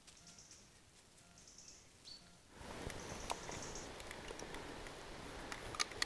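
Quiet forest background with faint high chirps, and a couple of sharp clicks from the buttons of a trail camera being pressed.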